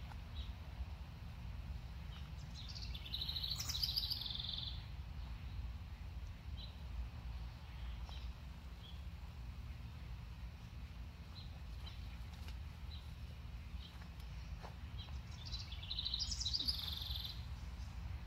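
A songbird singing two short trilled phrases, about three seconds in and again near the end, with faint scattered chirps in between, over a steady low background rumble.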